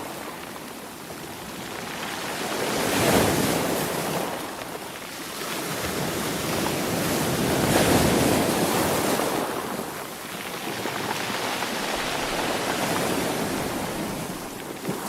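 Ocean waves breaking and washing on the shore, rising and falling in slow surges, with the strongest swells about 3 and 8 seconds in.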